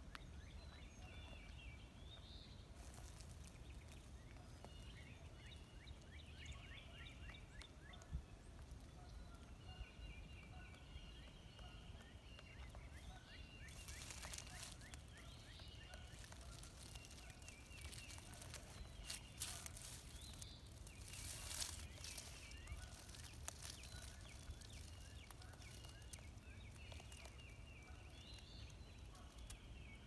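Faint background songbirds chirping and trilling on and off, with a couple of sharp single taps and brief rustling bursts partway through.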